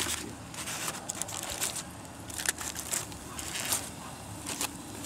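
Foil-wrapped fish sizzling on a grill grate over a fire, with irregular sharp crackles and pops.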